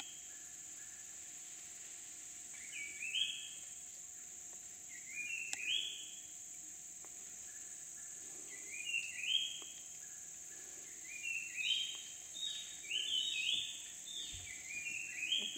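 A bird repeatedly calling short phrases of notes that climb in steps, a phrase every two to three seconds and coming faster near the end. Under it runs a steady high-pitched insect drone.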